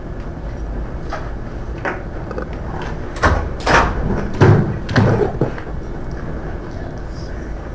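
Steady low room hum with a cluster of knocks and thuds about three to five and a half seconds in.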